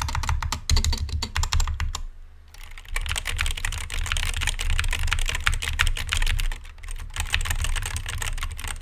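Rapid typing on an HK Gaming GK61 mechanical keyboard with Gateron Yellow switches and HyperX Pudding keycaps: a dense stream of key clicks and bottom-outs, pausing briefly about two seconds in.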